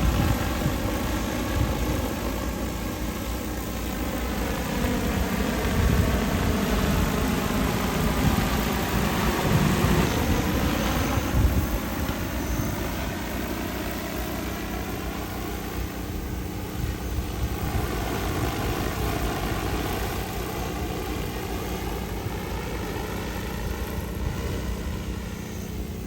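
DJI Agras T30 spraying drone flying over the rice field, a steady multi-rotor hum. Its pitch dips and rises again about ten seconds in as it passes or turns.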